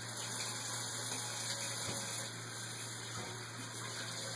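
Tap water running steadily into a sink while a Slippersock casting sock is wetted under it.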